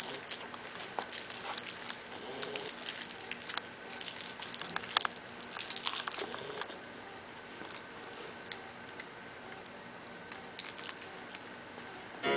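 Faint rustling and many scattered small clicks in a quiet room, with a louder knock just before the end.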